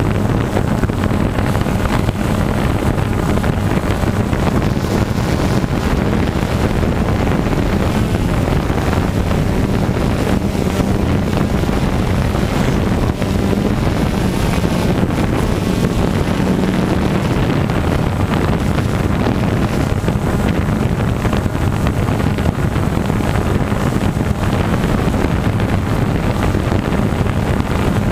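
Engine running steadily at a constant pitch, with wind buffeting the microphone.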